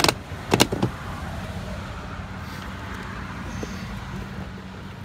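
Three sharp clicks and knocks in the first second as a Humminbird Helix 10 sonar head unit is seated and turned on its mounting bracket, then a steady low hum in the background.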